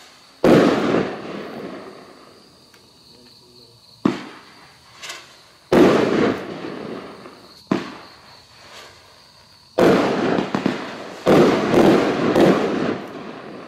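Funke FM19-S Vortex Salut fireworks going off one after another. Short sharp cracks are followed by loud aerial bangs, each with an echoing tail that dies away over a second or two. The last few bangs come close together near the end.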